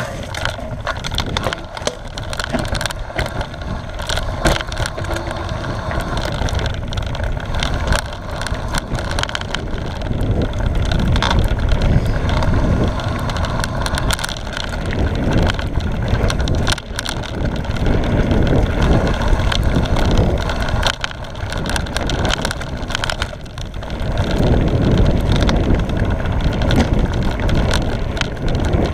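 Mountain bike riding fast down a dirt forest singletrack: tyres rumbling over the ground, chain and frame rattling with frequent clicks and knocks, and wind buffeting the camera's microphone.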